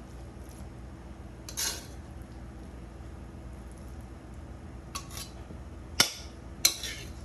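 Metal spatula scraping and knocking against a metal wok while scooping out stir-fried noodles: a short scrape about a second and a half in, then a couple of light clicks and two sharp metal knocks near the end.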